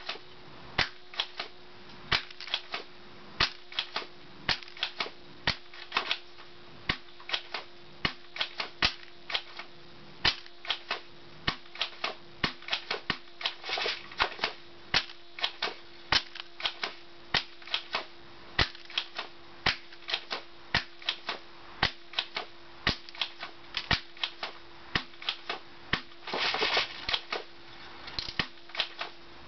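Airsoft shotgun being pumped and fired over and over at a plastic DVD case: a long, uneven run of sharp clicks and snaps, about two a second, with a faint steady hum underneath.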